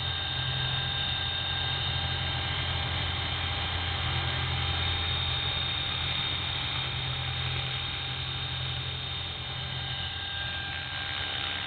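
EXI 450 electric radio-controlled helicopter hovering: the main rotor gives a steady drone, and the motor and gears add a constant high whine. Pitch and level hold nearly even, shifting slightly near the end.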